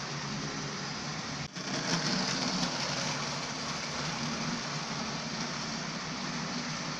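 Steady mechanical running noise of a Lima OO-gauge Class 55 Deltic model train: the locomotive's motor and the wheels of the loco and its coaches on the track. There is a brief break about a second and a half in, and the sound is a little louder after it.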